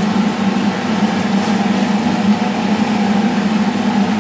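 Steady low hum of a running kitchen appliance fan, with an even whooshing noise above it.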